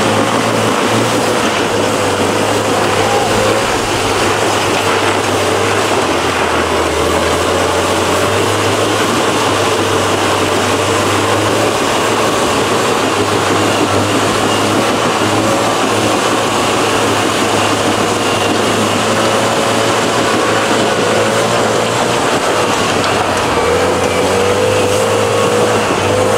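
Off-road Jeep engine running at steady, low revs as it crawls up a steep, loose dirt hill, its pitch wavering only slightly.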